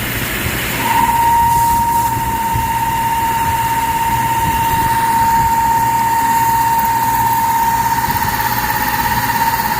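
CNC milling machine running with a carbide end mill, a steady high whine starting about a second in and holding over the machine's constant running noise.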